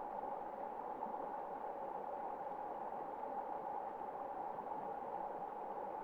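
Shallow mountain stream flowing over rocks and stones, a steady, even rushing of water.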